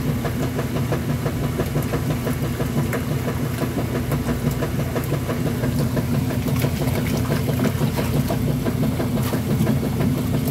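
Top-load washing machine running, a steady motor hum with a fast, even clatter as the water churns in the tub.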